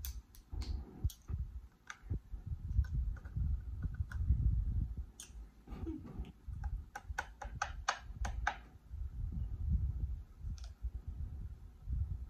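Close-miked eating of boiled lobster: chewing with wet mouth sounds, and a run of sharp clicks in the middle from the meat and shell being worked at the mouth.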